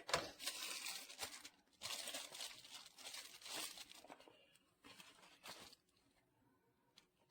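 Crinkling, rustling handling noise in three stretches, the longest in the middle, ending a little before six seconds in.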